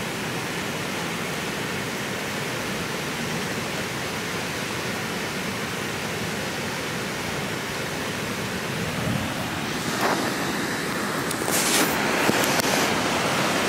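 Steady rush of water pouring from a dam outlet tunnel into a concrete spillway channel. It grows a little louder about ten seconds in, with a few brief knocks near the end.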